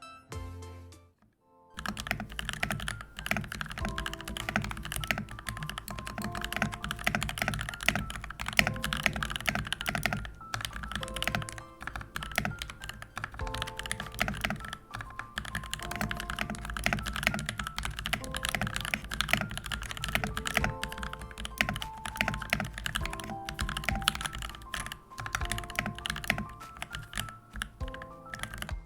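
Mechanical keyboard being typed on quickly and continuously: POM Jelly keycaps on NovelKeys Silk Black linear switches, a dense stream of keystroke clacks starting about two seconds in.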